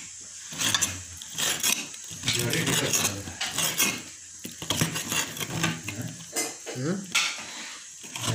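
Kitchen knife cutting raw chicken on a plastic cutting board: a series of irregular knocks of the blade against the board.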